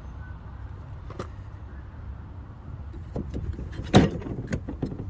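A tool carry case being opened and handled: a click about a second in, then several clicks and one loud knock about four seconds in, over a steady low rumble.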